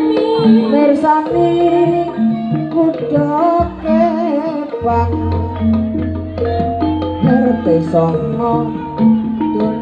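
Live Javanese gamelan-style ensemble accompanying a jaranan trance dance: struck metal gong-chimes and metallophones sounding steady notes on a beat, hand drumming, and a wavering melody line over them, with a long low gong tone in the middle.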